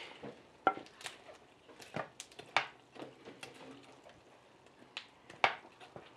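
Plastic spoon stirring pork rinds into a saucy nopal stew in a glazed clay cazuela: irregular sharp knocks and scrapes of the spoon against the clay pot, about six of them, over soft wet squishing of the food.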